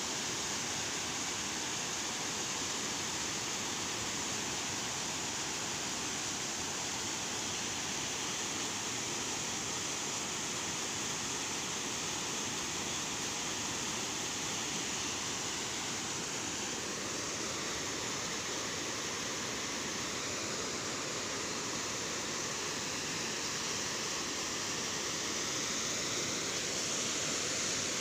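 Water pouring steadily over a concrete dam spillway and crashing into the churning pool below: an even, unbroken rush of falling water.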